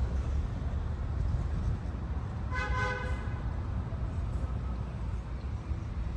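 Low steady rumble of city traffic, with one short car horn toot about two and a half seconds in.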